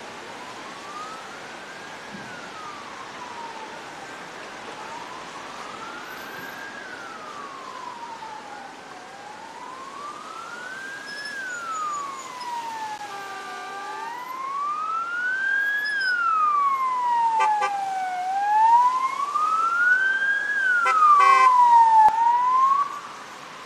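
Emergency vehicle siren wailing, its pitch rising and falling slowly about every four and a half seconds over a steady hiss. It grows louder through the second half, with a fainter second siren joining in, and cuts off just before the end.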